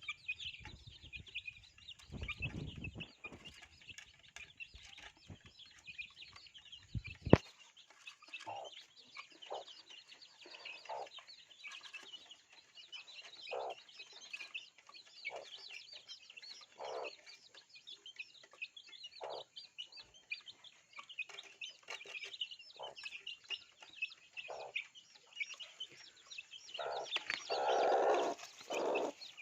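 A flock of baby chicks peeping continuously in a dense high-pitched chatter, with lower single clucks every second or two and a louder cluster of calls near the end. A low rumble of handling noise fills the first several seconds and ends in a sharp knock.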